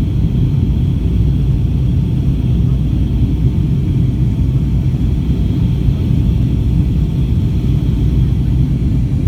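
Steady low rumble of engine and airflow noise inside the cabin of a Boeing 757-200, even in level with no changes.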